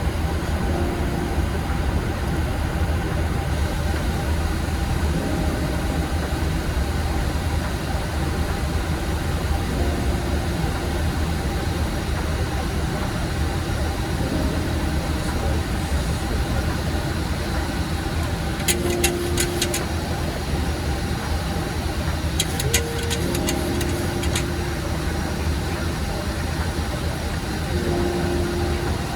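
Steady flight-deck noise of a Boeing 737 MAX in flight: airflow and engine hum with a strong low drone. Brief muffled voice fragments come and go, and two short clusters of sharp clicks sound about two-thirds of the way through.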